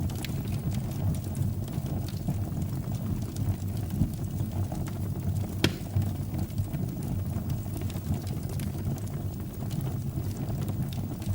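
Wood fire burning in a fireplace: a steady low rumble with scattered small crackles and one sharp pop a little past halfway.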